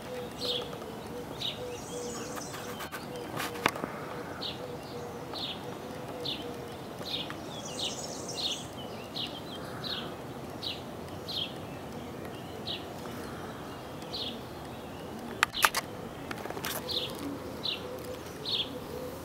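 Steady distant hum of motorway traffic from the A1 Autostrada, with a bird repeating short high chirps about once a second. A few sharp clicks come about four and fifteen seconds in.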